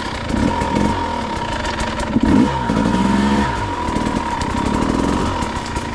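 Husqvarna dirt bike engine running at low trail speed, the throttle blipped so the revs rise and fall, most clearly about two seconds in and again around three seconds. A steady high whine runs underneath.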